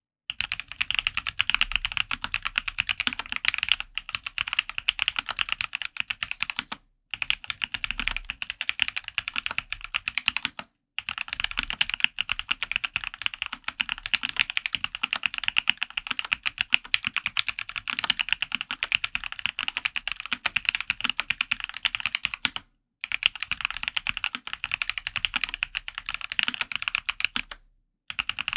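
Fast continuous typing on a custom mechanical keyboard with Gateron Oil King linear switches, lubed with Krytox 205g0, on a polycarbonate plate with plate and case foam. Rapid keystrokes come in long runs broken by four short pauses.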